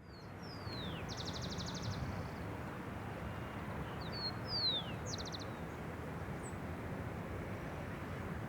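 A small bird singing the same phrase twice, about four seconds apart: a short high note, a falling whistle, then a quick rapid trill. Underneath runs a steady low rumble of background noise.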